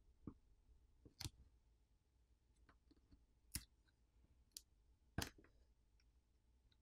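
A handful of faint, sharp clicks and taps over near silence: fingers and a tool handling a smartphone's button flex cable and frame as the cable is peeled away.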